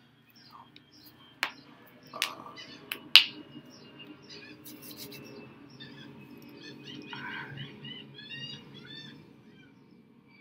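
Songbirds chirping and singing in the background, with several sharp clicks in the first few seconds, the loudest a little after three seconds in.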